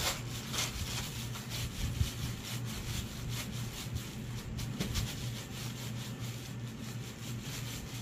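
Black plastic bags crinkling and a wrapped wooden hongdukkae roller rubbing on a bamboo floor mat as bare feet tread and roll it. The rustles and scrapes are irregular, the strongest about half a second and two seconds in. The cloth wound on the roller is being pressed smooth underfoot, a finishing stage in traditional fabric dyeing.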